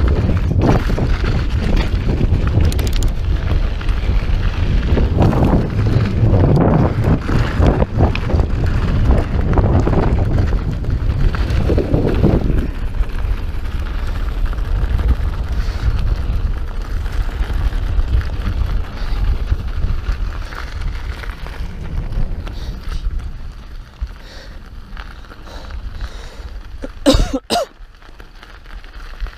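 Wind buffeting the microphone and mountain bike tyres rolling over a dirt trail, loud for the first dozen seconds and then easing off as the bike slows. A single sharp knock comes near the end.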